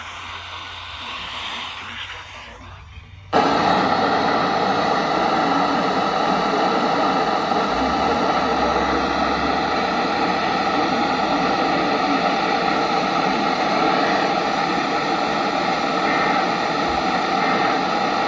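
Emergency Alert System attention signal, heavily distorted into a harsh, noisy tone. It cuts in suddenly about three seconds in and holds steady and loud.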